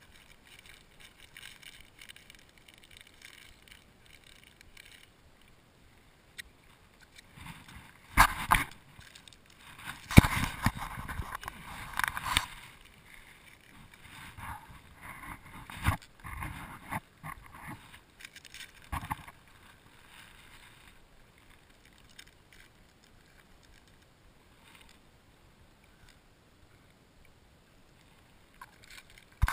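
Water splashing and sloshing around a kayak, with a few sharp knocks against the hull, in loud irregular bursts through the middle stretch and faint otherwise.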